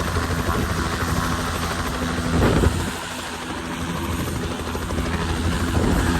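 Helicopter flying, its rotor chopping in rapid even pulses over the engine's steady drone, with a brief dip about three seconds in.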